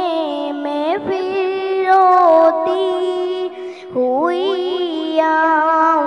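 A girl singing an Urdu naat into a handheld microphone, drawing out long held notes that waver and glide between pitches.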